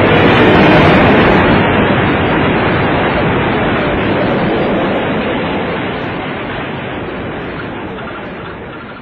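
A steady rushing noise that fades slowly and evenly throughout.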